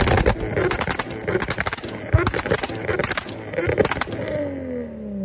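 Nissan R32 GT-R's turbocharged RB26 straight-six, its exhaust popping and crackling in rapid bursts on the overrun just after a rev. Near the end the engine speed falls back toward idle.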